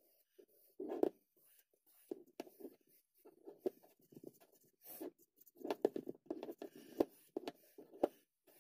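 Cloth rag rubbing wood stain into a wooden hammer handle: irregular, quiet rubbing and rustling strokes, busier in the second half, with a few light knocks.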